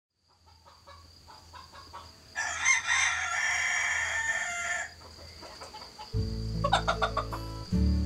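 A rooster clucks softly a few times, then crows once, a long call of about two and a half seconds. About six seconds in, music with low held notes and plucked strings comes in.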